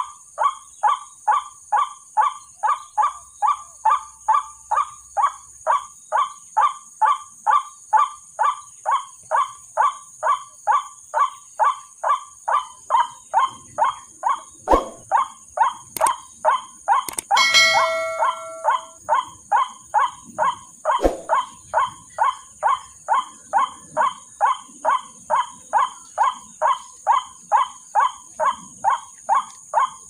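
A recorded white-breasted waterhen call played on a loop as a trapping lure: the same harsh note repeats evenly about twice a second and stays steady throughout. A few clicks and a short electronic chime sound about halfway through.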